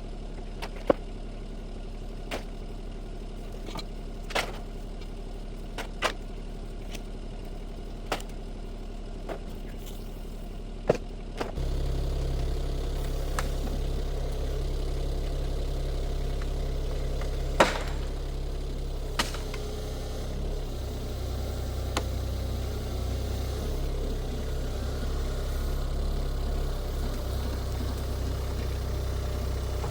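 Shantui STE35SR mini excavator engine running, with sharp knocks every second or two. About eleven seconds in, the engine note jumps to a deeper, louder, steady running sound, as if throttled up, and a few more sharp knocks follow.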